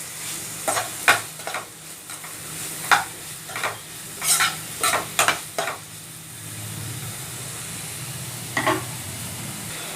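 Chopped onions sizzling in hot oil in a pan while being stirred: a run of quick spatula scrapes against the pan over the first half, then steadier sizzling.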